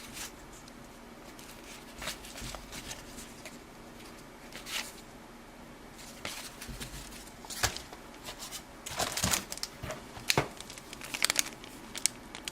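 Trading cards and wax-paper pack wrappers being handled: scattered light rustles, crinkles and card clicks, several short bursts a second or two apart.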